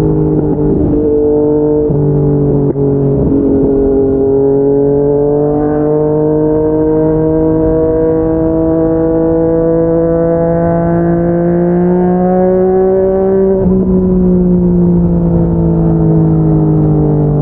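Yamaha MT-09 three-cylinder engine through an aftermarket slip-on exhaust, under way. It steps through a couple of quick upshifts early on, then pulls steadily with the pitch climbing slowly. About 14 seconds in it comes off the throttle and the pitch falls.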